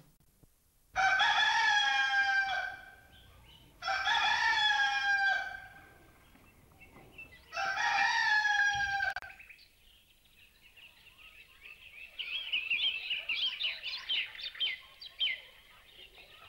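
A rooster crowing three times, each crow about a second and a half long, then small birds chirping for a few seconds near the end.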